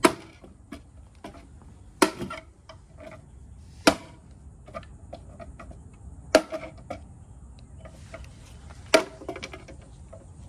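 Lineman's pliers hammering on a flathead screwdriver set against a knockout in a polymer electrical box, driving the knockout out: five sharp knocks a couple of seconds apart, with lighter taps in between.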